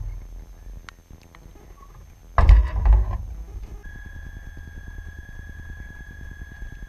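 Small electric RC tug boat running on the water, heard from a camera on its deck: a low rumble with rapid small ticks, and a loud thump and rattle about two and a half seconds in. From about four seconds in, a steady high motor whine joins the rumble.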